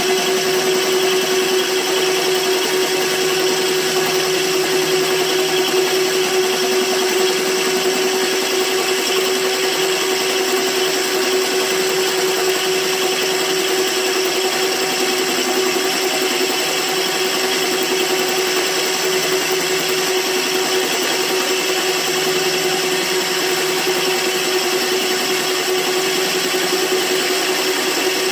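Electric motor of a line-boring rig running at one steady speed with a constant whine, turning a boring bar that cuts the welded-up cast iron bearing bore of a windmill head.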